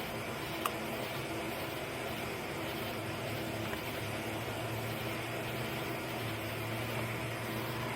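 A steady machine-like hum, with one short sharp click a little under a second in.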